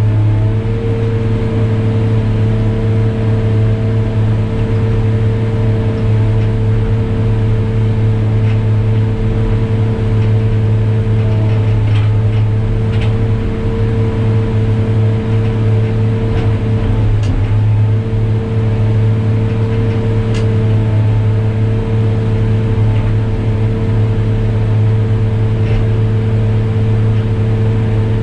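New Holland RG140B motor grader's diesel engine running steadily, a deep even drone, with a few faint clicks here and there.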